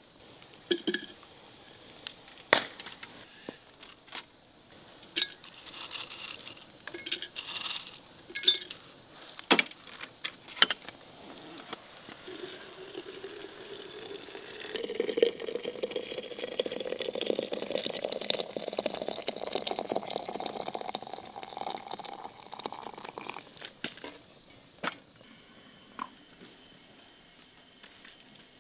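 Apple slices and dried herbs dropped into a glass teapot, clinking sharply against the glass, then water poured in, its pitch rising steadily for about ten seconds as the pot fills.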